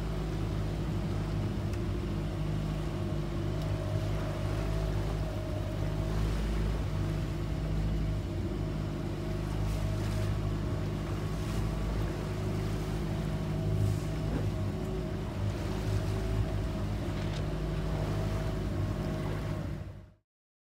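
Motorboat engine running steadily under way, with wind and water hiss over it; the sound fades out quickly near the end.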